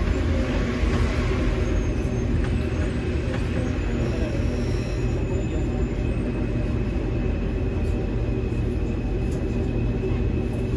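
Rubber-tyred Lausanne M2 metro train running, heard from inside the car: a steady low rumble with a thin, steady whine over it.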